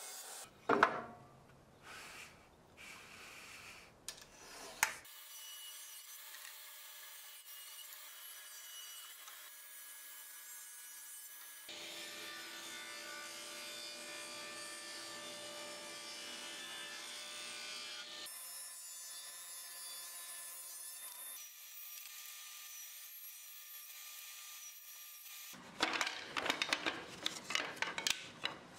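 Table saw ripping pallet pine into thin strips, heard as several cut-together stretches of steady running and cutting noise, with a few sharp knocks in the first seconds. Near the end comes a rapid clatter of the thin wooden strips being gathered and knocked together.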